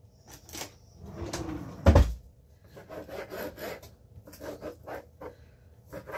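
A knock on the wooden block about two seconds in, then a kitchen knife sawing back and forth through slices of ham on the wooden block: a quick run of short rasping strokes.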